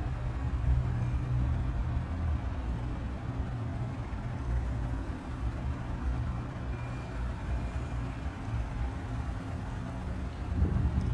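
Waterside outdoor ambience: a steady low rumble that wavers unevenly, with faint higher background noise above it.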